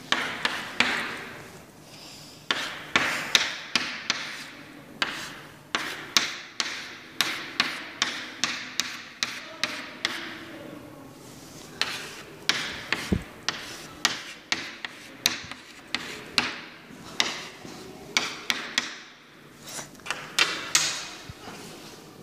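Chalk writing on a blackboard: a long run of sharp taps and short scraping strokes, irregular, about one or two a second, with short pauses between letters.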